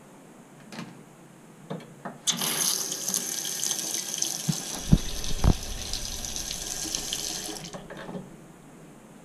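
Bathroom sink tap turned on by its handle, water running into the basin for about five seconds, then shut off abruptly. A few small clicks come before it starts, and there are three dull thumps midway.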